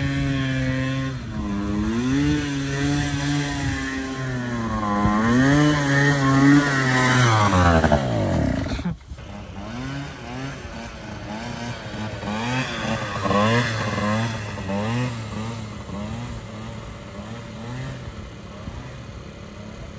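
Small two-stroke moped engine revved hard, its pitch sweeping up and down before dropping away about eight seconds in. After a break, the engine is heard further off, the throttle opened over and over in quick rising revs a little faster than once a second while the scooter is ridden on its back wheel.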